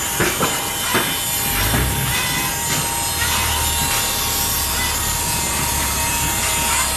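Industrial machine running with a steady rasping noise and a constant whine, with a few sharp knocks in the first second or so.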